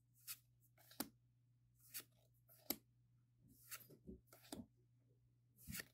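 Faint, short swishes and ticks of Pokémon trading cards being slid off the front of a hand-held stack and tucked behind it, roughly one a second with a quicker cluster in the middle.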